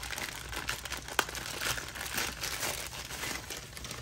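Plastic packaging crinkling and rustling as a vinyl figure is unwrapped from a plastic bag and bubble wrap, with scattered sharp crackles, the sharpest about a second in.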